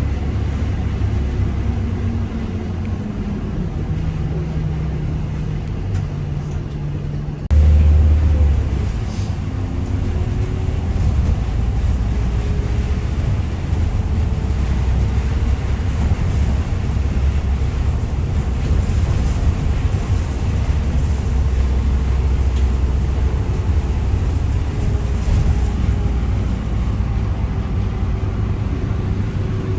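Interior rumble of a moving vehicle: a steady deep drone with faint engine or motor tones that slowly shift in pitch, jumping abruptly louder about a quarter of the way in.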